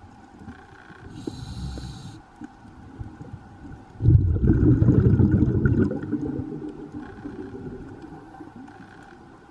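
Scuba diver's regulator breathing, heard underwater: a short hissing inhale about a second in, then a loud low rumble of exhaled bubbles for about two seconds from about four seconds in, under a faint steady hum.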